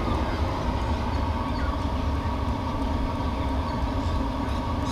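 Chinese diesel air heater running steadily at a 3 Hz pump setting, its exhaust blowing out through a dirt-bike muffler held to the outlet. It makes an even rumble with no change, measuring about 67 dB at half a metre.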